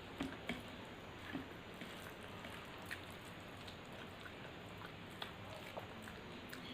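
Close-miked eating sounds from a mukbang of rice, dal and fried fish: scattered small clicks and soft squelches of chewing and handling food, over a steady low hiss.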